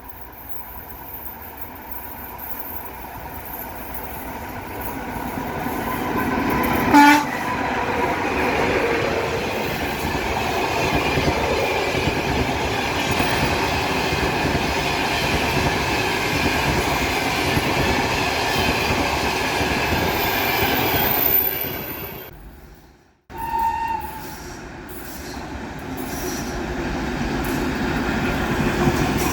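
Passenger train hauled by a ChS4 electric locomotive approaching and growing louder, with a short horn blast about seven seconds in, then the locomotive and coaches passing with steady rolling and wheel noise. The noise fades at about three-quarters of the way through, cuts off abruptly, and after a brief tone the rail noise comes back.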